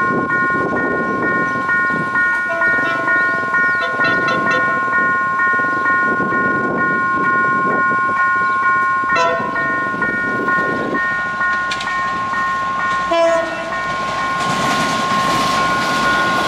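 Level-crossing warning bell ringing in a steady, high, multi-note pattern while a diesel passenger train approaches. About two seconds before the end the bell stops and the noise of the train passing close by takes over.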